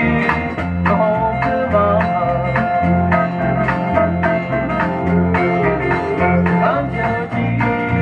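Country song playing from a 45 rpm vinyl single on a turntable: the instrumental close after the last sung line, with plucked strings over a steady, regular bass line.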